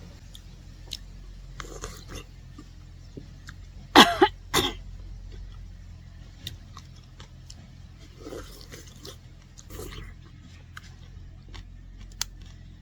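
A person coughing: two short, loud coughs close together about four seconds in, with scattered light clicks and knocks around them.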